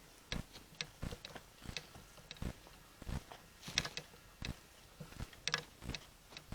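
Footsteps walking on rough ground: a short crunching step about every half second, some steps louder than others.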